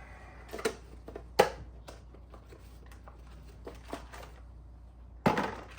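Scattered clicks and knocks of car parts being handled: new ignition coil packs taken out and laid down, with one sharp click about a second and a half in and a louder, brief rustling clatter near the end.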